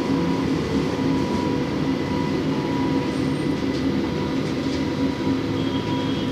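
Inside an electric tram car: the steady running noise of the car, with a constant electrical hum of several held tones.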